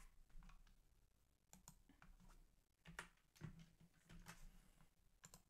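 Faint computer keyboard keystrokes: several separate clicks spread out over a few seconds, as when logging in.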